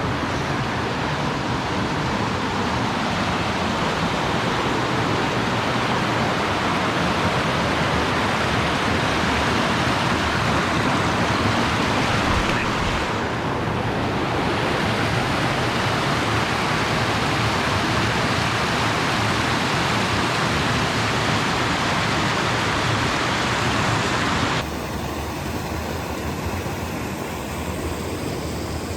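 Creek running high and fast with snowmelt, its water rushing in a steady loud noise. The noise drops suddenly to a quieter level near the end.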